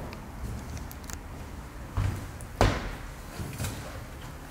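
Two dull thumps about half a second apart, the second the louder and sharper, with a fainter knock a second later, over low background noise.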